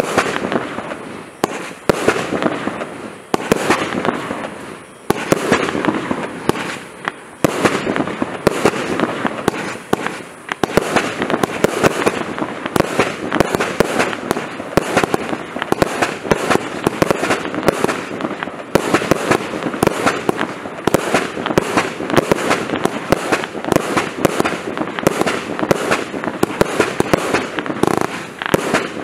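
Prestigious Pyrotechnics Frozen Spirit 49-shot firework barrage firing: shots go off one after another with many sharp cracks and pops. For the first ten seconds or so the shots are a second or two apart, then they run together into constant rapid firing.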